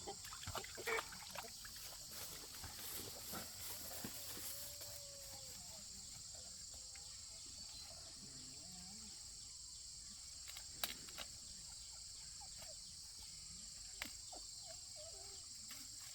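Farm animals calling faintly now and then over a steady high hiss, with two sharp knocks in the second half.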